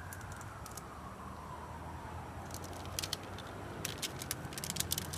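A distant siren trailing off, its pitch falling over the first two seconds, over a low steady rumble. From about halfway, a run of sharp crackles and clicks from a small plastic nursery pot being squeezed and handled to free a seedling.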